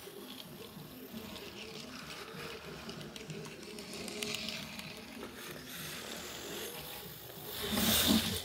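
A boy's low, wordless vocal sounds, wavering in pitch, with a louder, noisier burst near the end.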